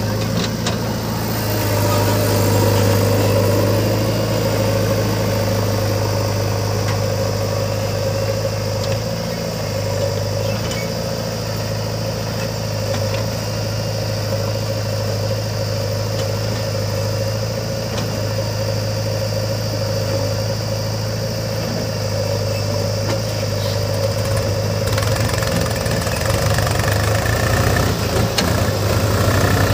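Diesel engines of a Swaraj tractor and a JCB backhoe loader running steadily with a low, even hum, a little louder near the end.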